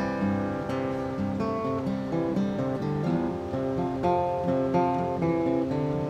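Steel-string acoustic guitar playing an instrumental passage of picked notes and chords, with no singing.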